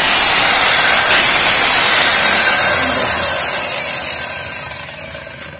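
Circular saw running free with no load. Its motor whine falls steadily in pitch and the sound fades toward the end as the blade spins down.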